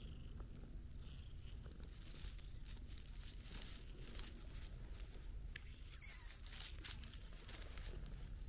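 Dry pine needles and grass crackling and rustling in short irregular bursts, stirred by a cat's paws and a person's shoes.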